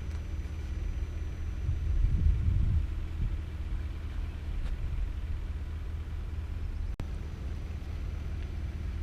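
A steady low rumble, swelling louder about two to three seconds in, with a brief break about seven seconds in.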